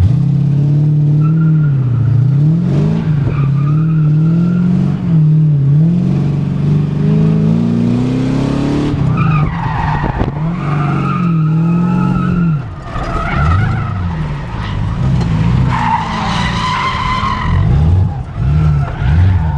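V8-swapped Mazda RX-7 drifting: the V8 is revved up and down again and again as the car slides, and from about halfway through the tyres squeal over it.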